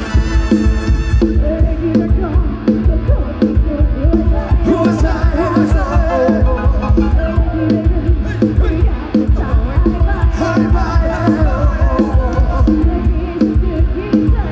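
Loud dance music played through the speakers of a small Thai rot hae sound truck: a heavy, steady bass beat with a wavering melody line over it.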